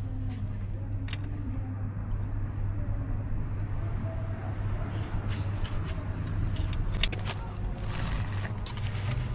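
A steady low hum with scattered clicks and light knocks.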